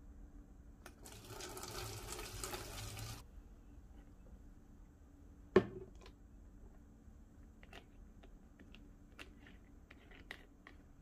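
Water pouring from a plastic jug into a large plastic bottle for about two seconds, then cutting off suddenly. A few seconds later comes a single sharp knock, followed by a scatter of light clicks as the bottle is handled near its cap.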